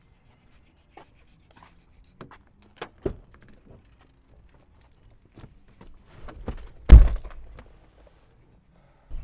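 A car's passenger door is opened and a man climbs into the seat, with scattered clicks, knocks and rustling. About seven seconds in, the door shuts with a heavy thunk, the loudest sound.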